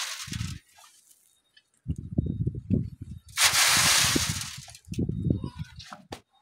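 Sand thrown onto an inclined wire-mesh sieve screen, hissing as it pours across and through the mesh: once at the start and again about three and a half seconds in. Rough low crunching sounds fill the gaps between the pours.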